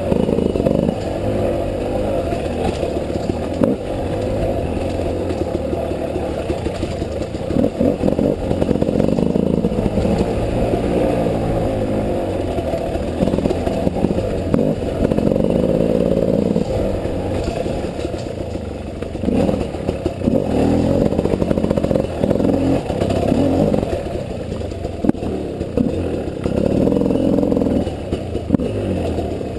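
Two-stroke 300 cc enduro dirt bike engine revving up and down while riding a slow, technical trail, with clatter and knocks from the bike over rocks and roots.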